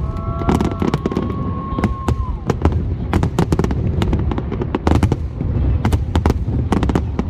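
Fireworks display going off: many quick bangs and crackles in an irregular stream, several a second. A steady high tone carries over them and fades out about two and a half seconds in.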